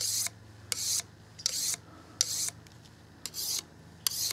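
Fillet knife blade drawn stroke after stroke along a fine-grit Kershaw diamond sharpening stick: six quick rasping strokes, a little under a second apart, each starting with a click, honing the edge keener.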